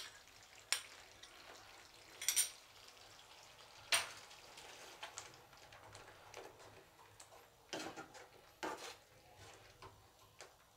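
Metal spoon scraping and knocking against a steel pan while stirring cream into a thick gravy: a few separate short scrapes spread out, with quieter stirring between.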